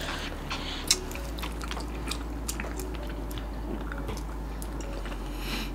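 Close-up chewing and biting of soft gummy candies, with wet mouth smacks and small clicks scattered through, one sharper click about a second in.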